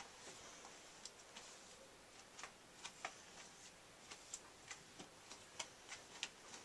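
Near silence with faint, irregular clicks as a chair is turned slowly.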